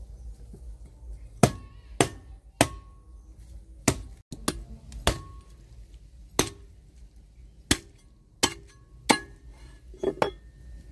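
A heavy cleaver chopping a cow's foot into pieces on a wooden chopping block: about a dozen sharp blows at irregular intervals of half a second to a second or so, some followed by a brief ring.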